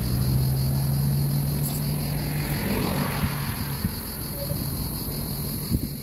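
A motor vehicle's engine hums with a steady low tone that fades out about halfway through, over a continuous high-pitched drone of singing cicadas. A few handling bumps come near the end.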